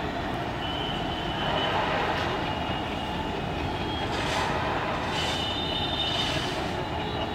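A light engine of three coupled Alco diesel locomotives runs through a station, its engines giving a steady rumble. A high, thin squeal, typical of wheel flanges on a curve, comes in about a second in and returns stronger in the second half.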